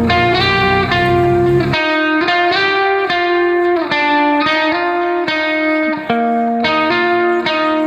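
Background music led by an effects-laden guitar playing sustained, held notes, with the bass dropping out about two seconds in and returning near the end.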